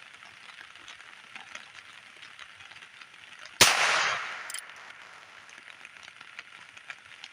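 A single shot from a .22 LR single-action revolver (Heritage Rough Rider Wyatt Earp) fired at a pop can, about three and a half seconds in, with a short echo trailing off after it.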